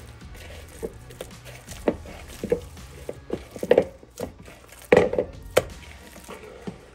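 Hands kneading ground turkey mixed with seasoning and onions in a mixing bowl: irregular wet squelches and slaps of the meat, the loudest about four and five seconds in.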